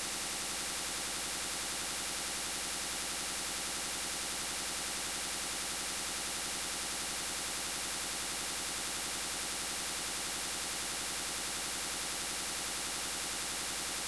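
Steady electronic static hiss, unchanging throughout, with the most energy in the high frequencies.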